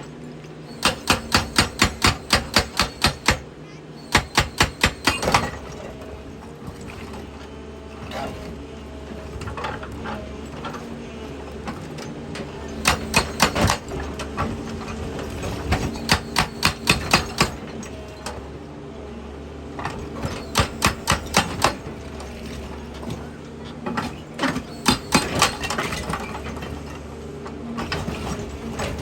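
Excavator-mounted hydraulic rock breaker hammering on rock in repeated runs of rapid blows, each run lasting one to two seconds, with the excavator's diesel engine running steadily underneath.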